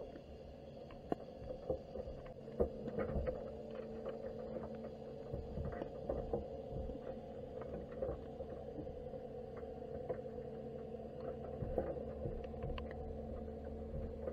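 Underwater ambience picked up by a camera in a waterproof case on a crab pot on the seabed: a steady low hum made of several tones, with scattered clicks and taps.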